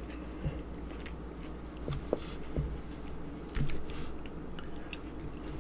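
A person chewing red grapes close to the microphone: a few short, soft wet bites and mouth clicks, one a little louder past halfway through.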